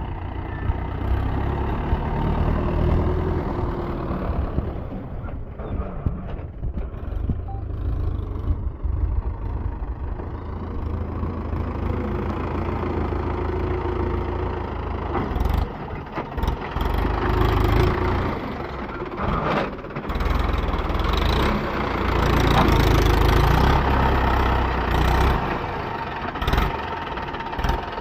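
Mahindra Yuvo tractor's diesel engine running under load as it hauls a trolley full of earth, getting louder in surges about halfway through.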